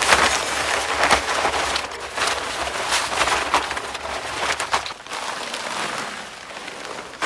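Sand poured from a bag into the drum of a small concrete mixer: a steady hiss and patter of grains that eases off about five seconds in.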